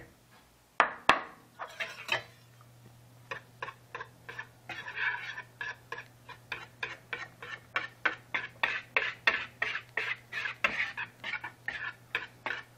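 A wire whisk beating flour into runny cake batter in a plastic bowl, with short regular strokes about three a second. A sharp knock about a second in.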